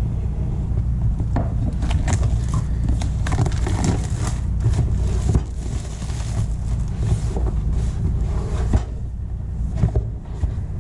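Cardboard shipping box being slit open with a knife, then the boxed drone pulled out and handled among crinkling plastic wrap: a busy run of scrapes, rustles and crackles that thins out near the end. A steady low rumble runs underneath.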